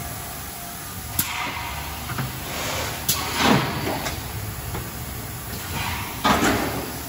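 Factory production machinery running with a steady hum. Sharp clicks followed by short hisses come about a second in and again about three seconds in, and two louder, longer whooshes come about three and a half and six seconds in.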